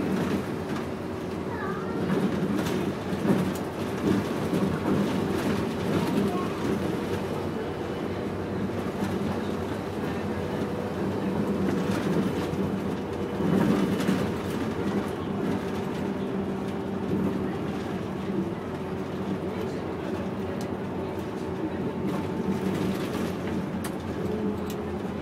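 City bus driving along, heard from inside the cabin: a steady engine drone with road and rolling noise.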